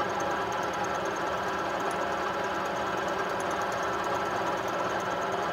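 Vertical milling machine running at just over 500 RPM, its 12 mm high-speed steel end mill taking a half-millimetre (20 thou) cut in a metal block. A steady machine hum with several steady tones running through it.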